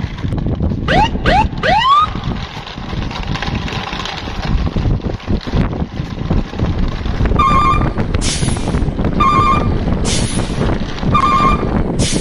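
Truck sound effects over a steady low engine rumble. About a second in come three quick rising whoops. From about halfway, a beep and a short hiss alternate, a second apart, repeating every two seconds or so.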